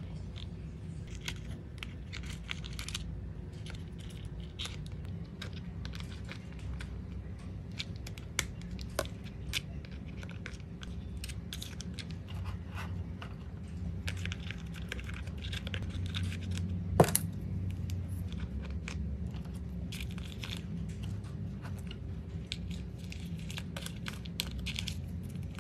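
Small paper photocards being handled, shuffled and slipped into a pink plastic storage case, giving light scattered clicks and rustles. One sharper click comes about two-thirds of the way through.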